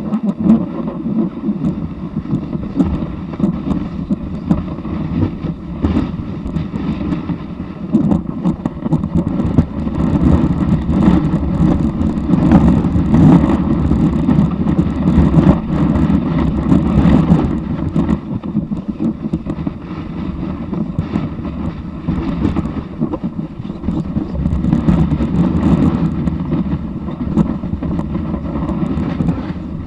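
Snowboard sliding down a snow slope, its base rumbling and scraping over the snow, heard close up from the board's nose, with wind on the microphone. The rumble is louder in the middle stretch.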